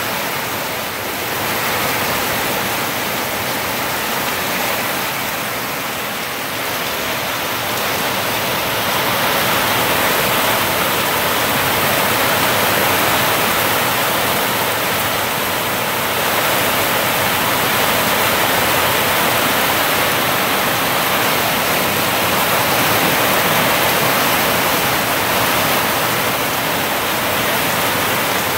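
Heavy rain pouring down in a steady, dense hiss, a little louder after about ten seconds.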